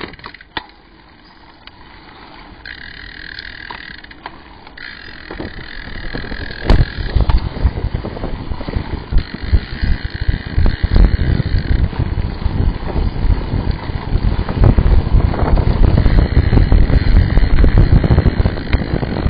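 Wind buffeting the microphone and tyre-on-road rumble from a road bike, growing steadily louder as the bike picks up speed, with a few sharp clicks.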